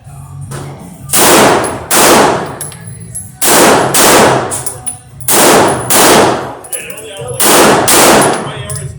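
Eight gunshots fired in four quick pairs, the two shots of each pair well under a second apart, each shot trailing off briefly.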